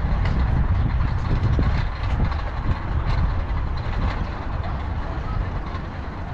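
A Tomos moped riding along, its small two-stroke engine running under a heavy low rumble of wind buffeting the microphone.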